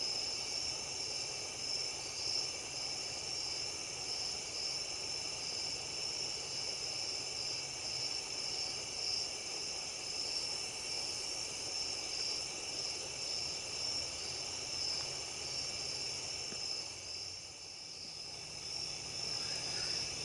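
Chorus of night insects, a steady high-pitched trilling that carries on without a break and dips briefly about three-quarters of the way through.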